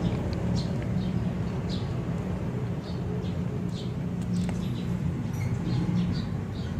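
Outdoor background: a steady low engine hum with short, high chirps of small birds recurring every second or so.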